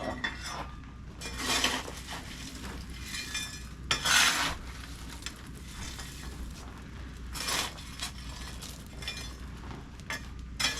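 Coal and coke being raked up in a blacksmith's forge with a metal tool: a few separate bursts of scraping and clinking, the loudest about four seconds in.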